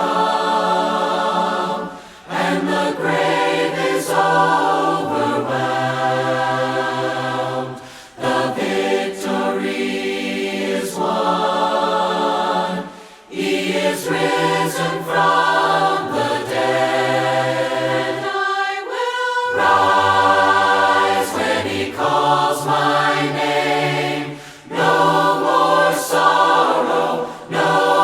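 A choir singing a hymn in parts, a cappella, in long held phrases with short breaths between lines.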